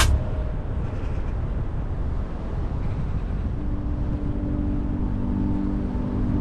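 Car driving slowly through town: steady engine and tyre noise on the road, with a low steady hum joining about three and a half seconds in.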